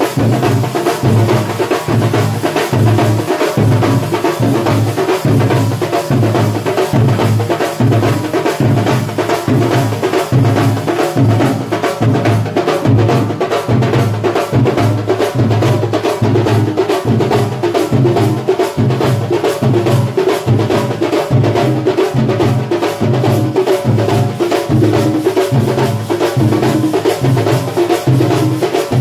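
A Thambolam festival band playing: drums beat a fast, steady rhythm with heavy low strokes, and a sustained melody line runs over it.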